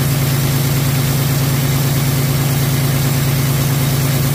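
PACCAR MX-13 inline-six diesel idling steadily while the truck sits parked running a DPF regen: an even low hum with a rapid regular pulse. The engine is leaking compression into the cooling system, pushing the coolant tank pressure up fast.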